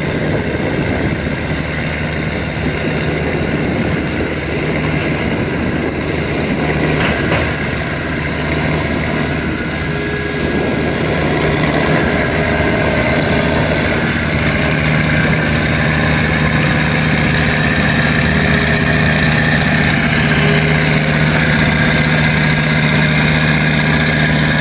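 Diesel engine of a hydraulically driven tracked amphibious crawler running steadily as it drives across sand. The engine gets somewhat louder about halfway through as the vehicle comes closer.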